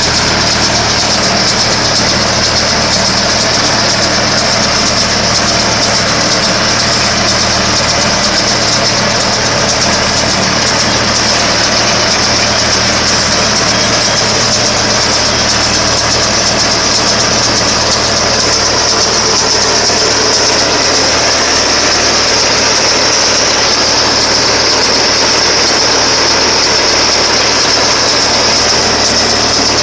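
Tractor-driven Shaktiman round baler running steadily: an engine drone with a constant high whine over it, unchanging throughout.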